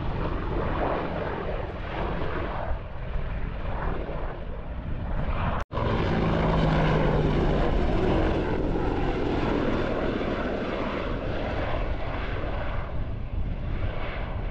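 Several low-flying helicopters passing overhead, a steady drone of rotors and engines that cuts out briefly about five and a half seconds in and is loudest just after.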